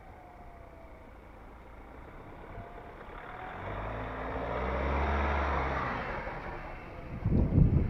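Ford Ranger Raptor pickup driving past on a trail: its engine and tyres grow louder, pass about five seconds in, then fade away. Near the end, wind buffets the microphone.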